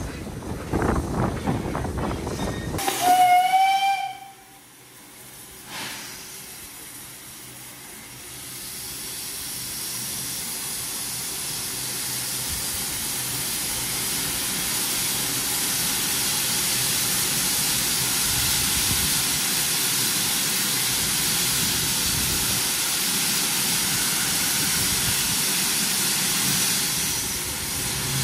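A steam locomotive's whistle gives one short blast about three seconds in. After it comes a steady hiss of escaping steam that builds up and then holds.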